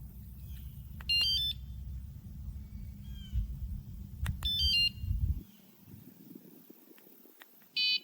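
Electronic chirps from a bike anti-theft alarm: two short stepped-pitch chirps about three seconds apart, then a brief beep near the end. A low rumble underneath cuts off about five seconds in.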